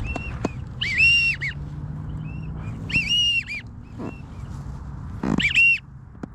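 Duck whistles: clear, rising-then-falling whistled notes in short groups of two or three, repeated about five times, the kind of whistle wigeon and pintail drakes give and hunters imitate.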